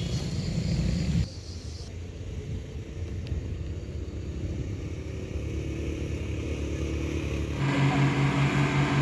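Low, steady rumble of vehicle engines on the road. About three-quarters of the way through, a truck's engine comes in louder and holds a steady low hum as the truck approaches.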